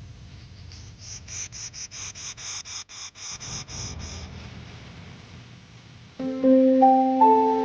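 A quick run of short high-pitched pulses, about four a second, lasting a few seconds. About six seconds in, background keyboard music starts with sustained, louder chords.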